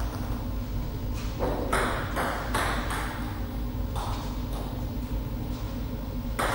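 Table tennis ball bounced between points: a run of light, sharp clicks about three or four a second, then a few scattered ones, over a low steady hall hum.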